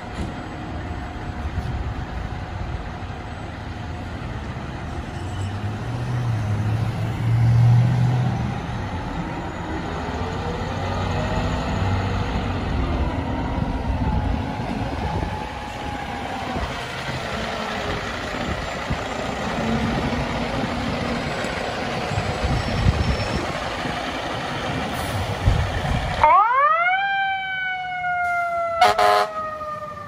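FDNY fire trucks pulling out with engines running loudly under a siren that slowly rises and falls in pitch. About four seconds before the end the sound changes abruptly to a fire truck's wailing siren sweeping up and down, with a couple of short horn blasts.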